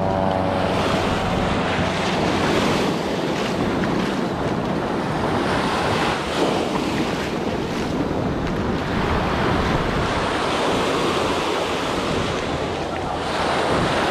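Ocean surf and wind rushing over the microphone, a steady noise that swells and eases.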